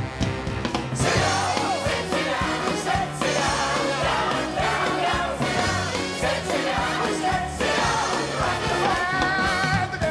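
Stage musical number: a pit orchestra plays a show tune while the ensemble sings.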